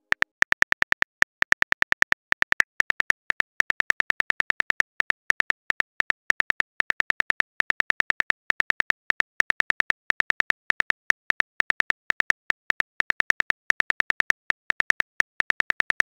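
Keyboard typing clicks from a texting app's typing animation: a quick, uneven run of short, sharp ticks, about five or six a second, as a message is typed out.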